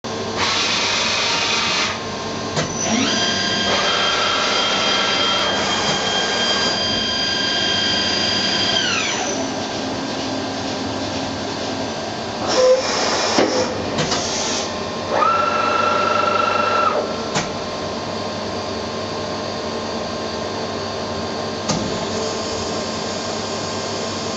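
Johnford HMC500 horizontal machining centre running a pallet change. Drive motors whine up, hold a steady pitch and wind down, once for several seconds and again briefly later, with a spell of clunks and clatter in between, over a steady machine hum.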